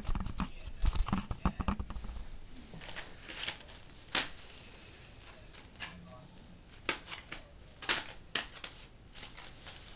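Knocks of a camera being handled and set down, then scattered sharp clicks and crinkles of plastic packaging being worked open by hand.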